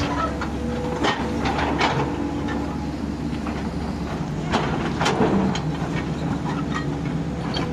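A steady low mechanical rumble with a constant hum, broken by a few irregular sharp clacks and knocks.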